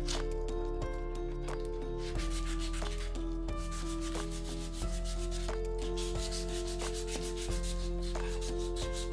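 Abrasive rubbing or sanding, a steady scratchy hiss, under background music with held notes and a bass line.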